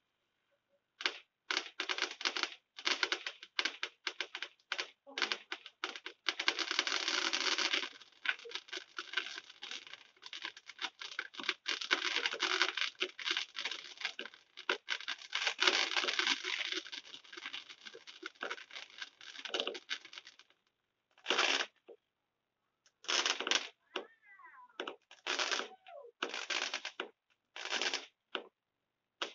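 Fireworks crackling: a dense run of rapid pops and crackles lasting about twenty seconds, then several shorter separate bursts of crackling.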